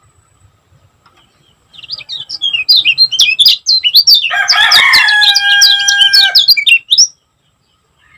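Kecial kuning (yellow white-eye) singing a fast, tightly packed run of short, sharp high chirps. It starts a couple of seconds in and stops abruptly near the end. A lower, drawn-out, steady call overlaps the middle of the song.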